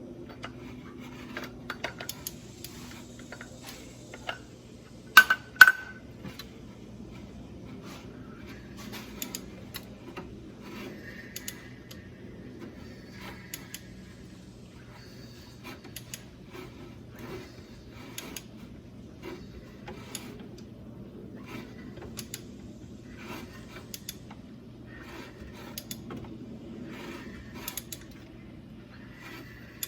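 Hand tools and small metal engine parts clinking, tapping and scraping, with two sharp metallic clanks close together about five seconds in, over a steady low hum.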